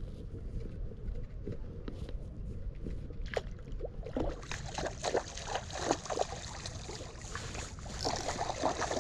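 A hooked pink salmon thrashing and splashing at the river's surface from about four seconds in, in irregular splashes over a low steady rumble.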